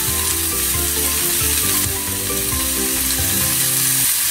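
Diced mixed vegetables sizzling in a ceramic frying pan over a high-medium gas flame, stirred and tossed with a spatula, giving a steady frying hiss.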